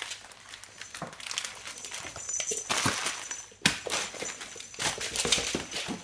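Rustling and scuffling noises in irregular bursts, with a single sharp knock a little past halfway, as a dog moves about a present in wrapping paper on a wooden floor.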